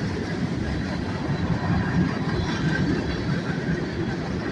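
Freight train cars rolling past on the rails: a steady rumble of wheels on track.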